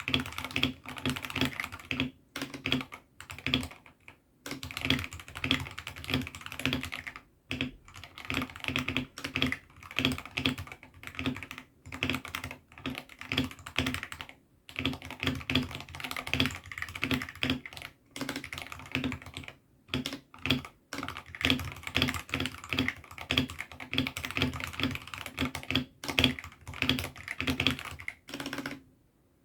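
Typing on a 68-key hotswappable mechanical keyboard fitted with AKKO Sakura switches: rapid keystrokes in runs of a few seconds, broken by short pauses.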